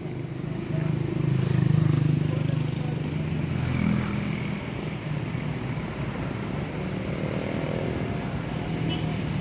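Engine of a road vehicle running, growing louder about a second in and loudest near two seconds, as if passing close by, then carrying on as a steady low drone.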